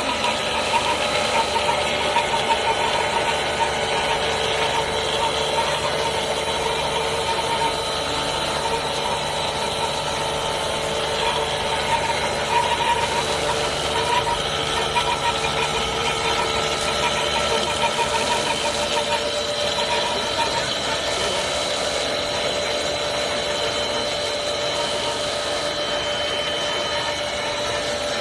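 LLDPE stretch film extrusion line running steadily: a constant machine hum with several steady high whines.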